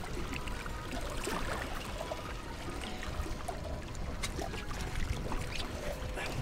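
Water splashing and trickling beside a boat's hull as a hooked shark rolls and swims at the surface, over a steady low rumble.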